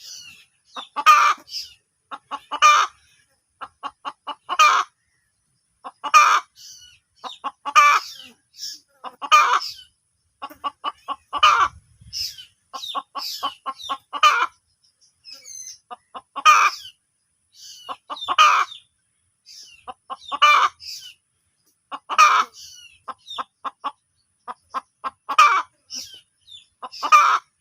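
Hen cackling over and over: runs of quick short clucks, each ending in a loud drawn-out squawk, about every two seconds.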